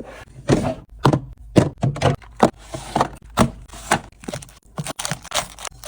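A run of knocks and taps, about two a second, as drinks and packaged items are set down and arranged on the shelves of a mini fridge.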